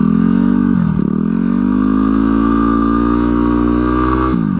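Single-cylinder dirt bike engine under throttle on snow with almost no traction. Its pitch climbs, dips sharply about a second in, climbs slowly for about three seconds, then dips sharply again near the end.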